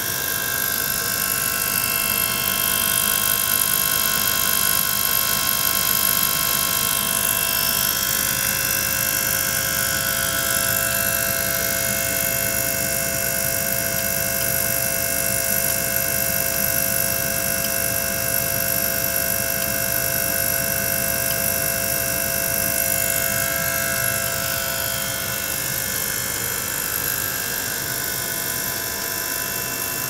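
Small electric pump running steadily, circulating water through the ultrasonic tank, a continuous mechanical hum with several steady whining tones that shift slightly in pitch around 8 seconds in and again around 23 seconds.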